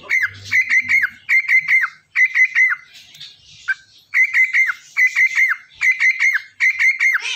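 Cockatiel whistling: a short phrase of three quick notes, each dropping at its end, repeated over and over, with a brief pause near the middle.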